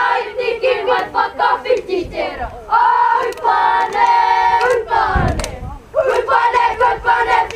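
A group of children chanting in unison in a kapa haka performance, a Māori group chant delivered in short, strongly held phrases with brief breaks between them.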